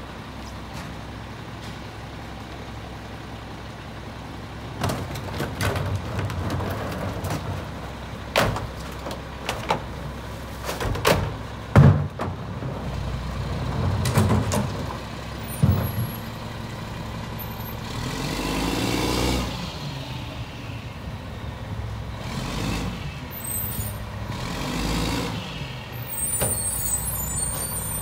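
Mack MR rear-loader garbage truck's diesel engine idling while recycling is loaded by hand, with a run of clattering bangs as bins and items hit the hopper, loudest about 12 s in. Later the engine revs up and down twice, around 18 s and again around 24 s, and a hiss of air comes near the end.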